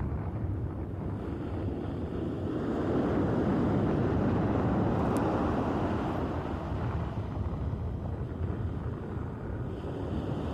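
Sea surf washing onto the shore: a wave's rush swells a couple of seconds in and slowly subsides, over a steady low rumble of wind on the microphone.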